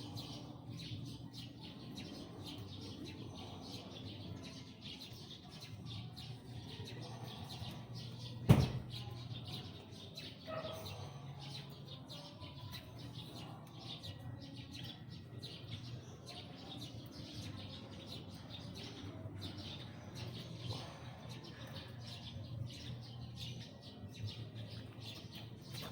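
Birds chirping over and over throughout, with one sharp, loud knock about eight and a half seconds in.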